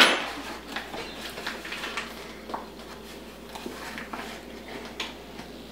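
A sharp clink of kitchenware right at the start, then irregular light rustling and scraping of a paper flour bag as flour is scooped out with a measuring cup.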